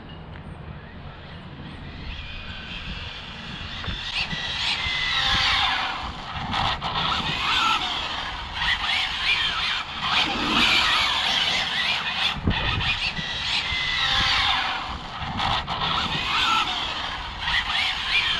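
ARRMA Felony 6S RC car drifting: tyres squealing in repeated slides, with a whine that rises and falls in pitch. It gets louder from about four seconds in.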